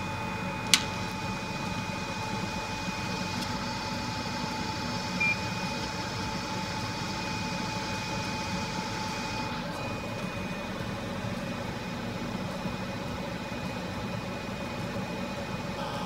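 Hot air rework station blowing a steady hiss onto a micro USB charging port to melt its solder and free it from the circuit board. A click comes near the start and a short beep about five seconds in, and the higher part of the hiss drops about halfway through.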